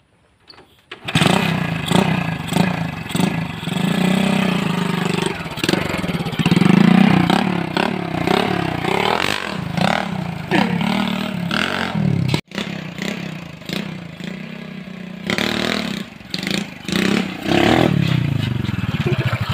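Honda Grand motorcycle's small single-cylinder four-stroke engine, running through a Suzuki Satria FU header pipe as a loud open exhaust, starts about a second in and then revs hard in repeated rises and falls as the bike pulls away and rides.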